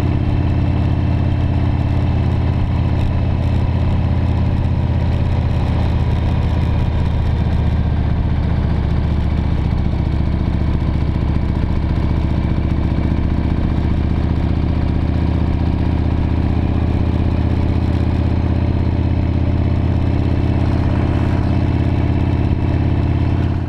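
V-twin cruiser motorcycle engine running steadily at road speed, heard from on the bike, with wind rush over it; it cuts off suddenly at the very end.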